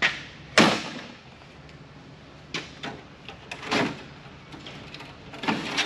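Knocks and clacks of telecom circuit cards and their parts being handled and pulled from a Nortel PBX card shelf. The sharpest knock comes about half a second in, followed by several lighter clacks in quick pairs.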